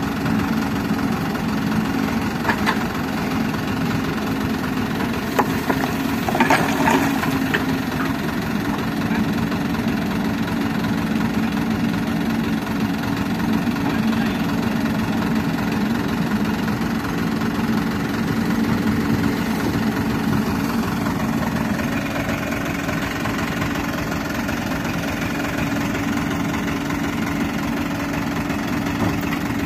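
Heavy diesel engines of a dump truck and an excavator running steadily, with a few brief clatters about two and a half and six to seven seconds in.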